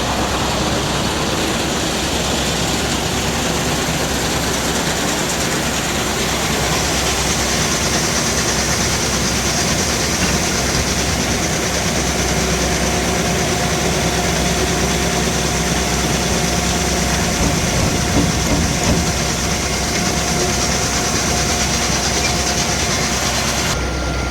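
Combine harvester running while combining wheat: a loud, even mechanical noise of engine and machinery. A steady whine comes in about halfway, and there are a few knocks about three-quarters of the way through.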